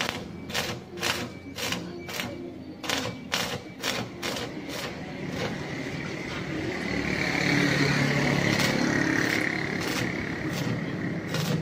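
Electric arc welding on a steel window grille: a string of short, sharp crackles in the first few seconds, then from about seven seconds a steady arc crackle and hiss with a few pops as a longer bead is run.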